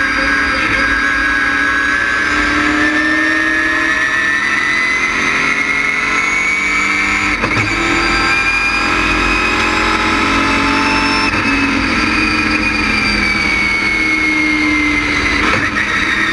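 LS6 V8 of a GTA stock car running hard under load, its pitch climbing slowly for about eleven seconds and then falling away over the last few seconds. A brief sharp knock comes about seven and a half seconds in.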